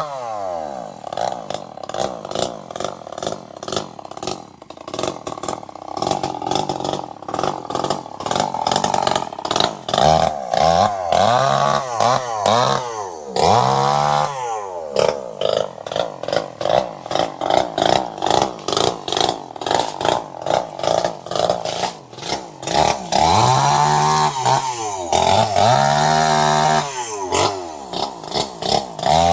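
Chainsaw engine running and revving up and down over and over, its pitch repeatedly rising and falling, in quicker cycles about a second apart near the end.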